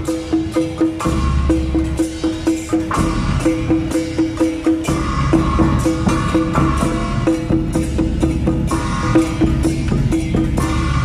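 Taiwanese temple procession drum-and-gong troupe playing: wooden barrel drums and small framed drums beaten with sticks under a fast, even clanging of handheld gongs and small cymbals.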